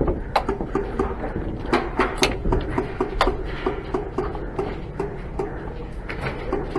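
Scattered airsoft gunfire in a reverberant indoor arena: irregular sharp cracks and clicks, the loudest few in the first half, over a steady clattering rattle.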